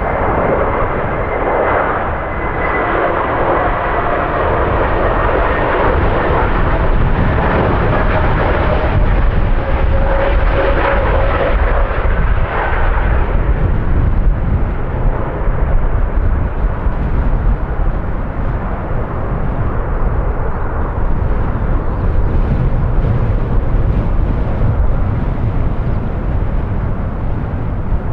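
Airbus A321neo jet airliner on final approach passing low: its engine whine and roar carry tones that fall slightly in pitch over the first dozen seconds, then it fades into a low rumble. Strong wind buffets the microphone throughout.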